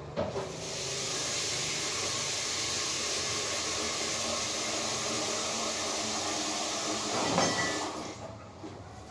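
A loud, steady hiss that starts about half a second in and stops about eight seconds in, with a short knock near the start and another about seven and a half seconds in.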